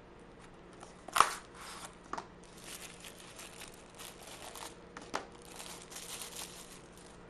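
Hands handling a folding knife: one sharp click about a second in, then rustling with lighter clicks, the loudest of them about five seconds in.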